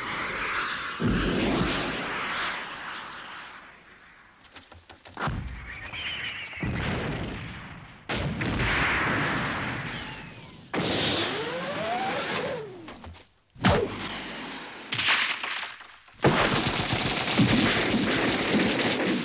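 Animated-film battle sound effects: a series of explosions going off one after another, each dying away, with a couple of sliding whines partway through, then rapid automatic rifle fire over the last few seconds.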